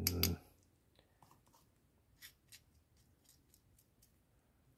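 Faint scraping and light clicks of a grease brush daubing silicone paste onto a brake caliper slider pin, with a brief loud sound at the very start.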